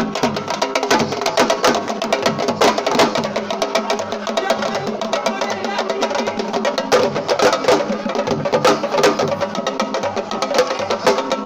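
Fast, dense drumming music with sharp, rapid drum strokes and voices over it.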